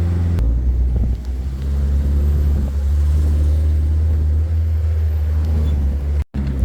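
A 4x4 truck's engine running with a steady low drone, heard while riding in the truck. The sound briefly drops out near the end.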